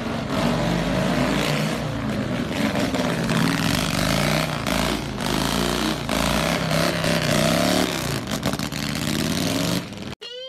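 Motorcycle with a sidecar riding past, its engine running and revving with wavering pitch. The sound cuts off abruptly near the end.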